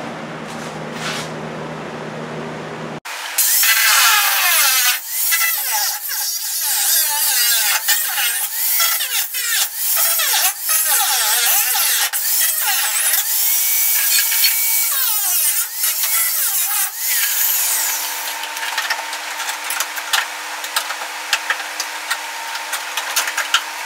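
A steady low hum, then, about three seconds in, an angle grinder with a cut-off wheel starts cutting through rusted sheet-metal floor and pillar of a 1963 Chevy C10 cab. Its pitch dips and recovers as the wheel bites into the steel. In the last several seconds the grinding is lighter, with many sharp clicks.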